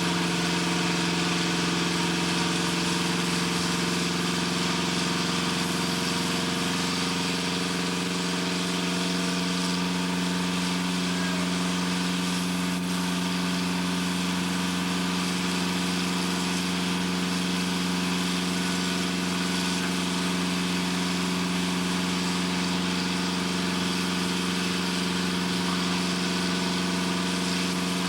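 Steady drone of heavy machinery running at a constant speed, a low hum with a few steady tones under a broad hiss, unchanging throughout.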